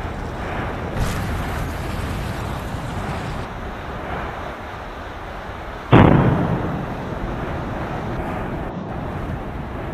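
Phreatic steam-blast explosions where lava meets groundwater: a steady rushing rumble of the eruption, a smaller bang about a second in, and one loud blast about six seconds in that fades over a second or so.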